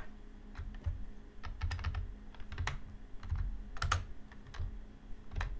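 A run of irregular clicks and taps from computer controls, several close together, over dull low knocks.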